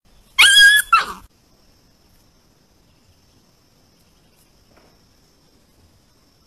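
A puppy yelping near the start: a sharp, high-pitched yelp followed at once by a shorter one that falls in pitch. A faint steady insect trill runs underneath.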